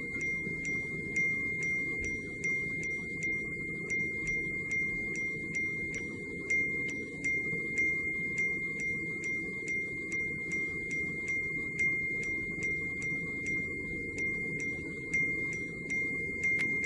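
An iPhone sounding its message notification chime over and over as WhatsApp Business messages pour in. The short bell-like tones come about three times a second and blur into continuous ringing, over a low rumble of background noise.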